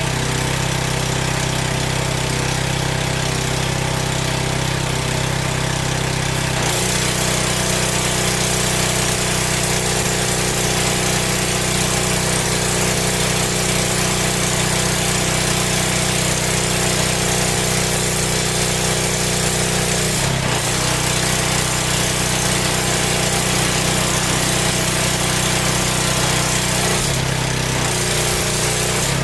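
Gas-engine pressure washer running steadily under a constant engine note, which shifts briefly three times.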